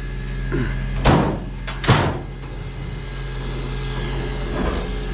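An engine idling steadily with a low hum, with two sharp bangs about a second and two seconds in, as pieces of scrap are handled.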